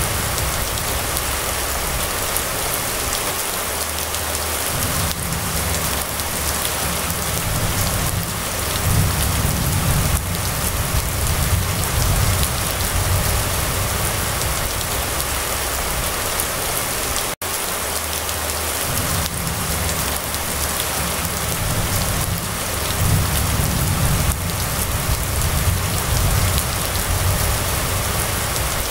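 Steady rain falling on a wet paved street and roofs, an even hiss, with a low rumble that comes and goes underneath. The sound cuts out for an instant about seventeen seconds in.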